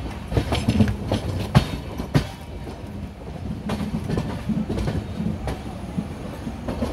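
Wheels of a moving passenger train, heard from aboard, with a steady rumble and irregular clickety-clack over rail joints and points. Several sharp, loud knocks come in the first two or three seconds, and the clicks after that are fainter.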